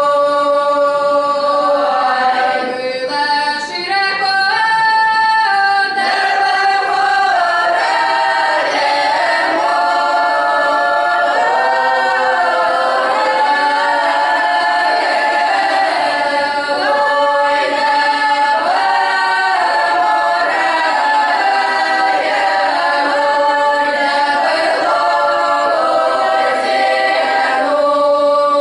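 Children's folk ensemble singing a Russian traditional folk song a cappella in several voice parts. A chord is held at the start, the voices then move through the melody together, and they settle onto a long held chord again near the end.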